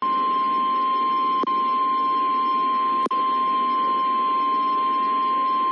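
Emergency alert broadcast's single steady warning tone, the 1050 Hz alarm tone of NOAA Weather Radio, over faint radio hiss, with two brief clicks about a second and a half in and about three seconds in. It signals that a severe thunderstorm warning is about to be read.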